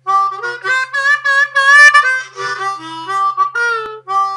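Harmonica playing a short phrase of changing chords and notes, ending on a held chord.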